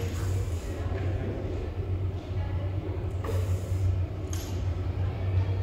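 Steady low hum, with two short, hissing exhalations about three and four seconds in from a lifter working a loaded barbell in the front rack.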